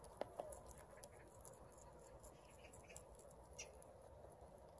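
Rabbits nibbling fresh green leaves: faint, quick crunching and clicking from their chewing, with a couple of sharper ticks about a quarter second in.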